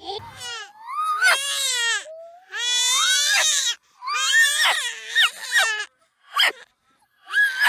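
A dog howling along with a baby's squealing cries: a series of long, high, wavering calls with short breaks between them.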